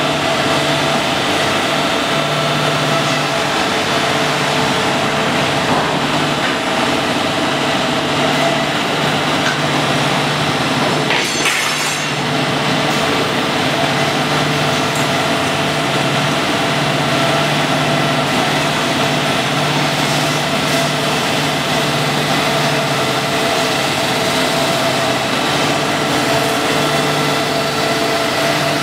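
Automatic abrasive belt flat grinding machine running: a loud, steady mechanical drone of motors and moving abrasive belts, with a constant low hum and a few steady whining tones.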